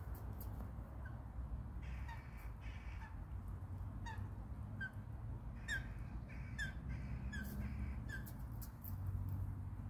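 Short bird calls repeated roughly once a second, each a brief falling note, over a steady low rumble.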